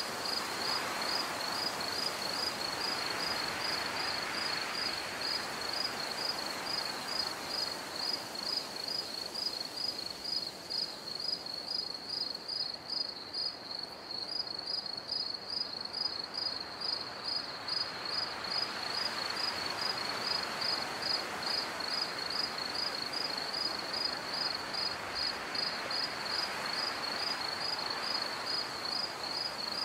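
Insects chirping in a steady, fast pulsing trill, about three pulses a second, over a soft hiss that swells and fades.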